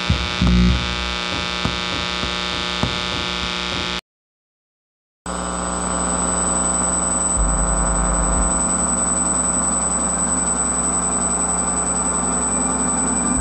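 A steady electrical hum made of many sustained tones, with a few faint clicks. About four seconds in it cuts out to dead silence for about a second, then returns with a thin, steady high whine over it and a low rumble that swells briefly.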